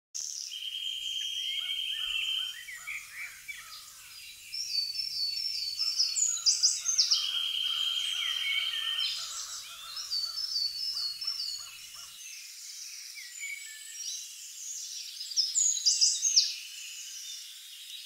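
Forest birdsong sound effect: several birds singing at once, with a buzzy trill that comes back every few seconds among high chirps and whistles. A fainter lower layer of calls cuts off suddenly about twelve seconds in.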